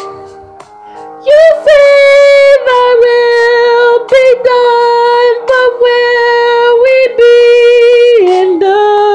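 A woman singing, holding long drawn-out notes mostly on one pitch with short breaks between them, and stepping down to a lower note near the end. The first second is softer, before the voice comes in loud.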